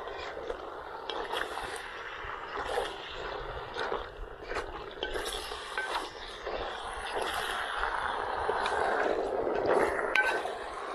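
Meat and vegetables sizzling in a hot cast-iron cauldron as a wooden spoon stirs them, with repeated scrapes and knocks of the spoon against the pot. The sizzling and stirring grow louder toward the end.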